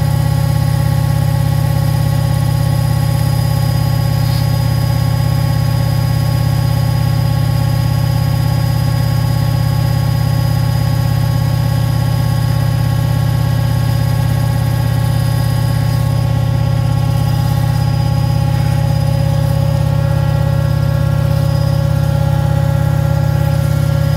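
Beko washing machine running steadily: a constant low motor hum with steady whining tones above it and no pauses.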